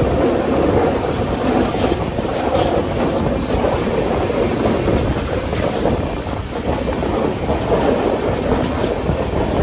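Express train running on the track, heard from on board: a steady rumble of coaches rolling, with wheels clattering over rail joints.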